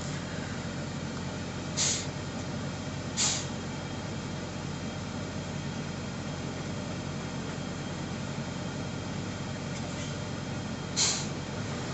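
Semi truck's diesel engine idling steadily, with three short hisses: two close together near the start and one near the end.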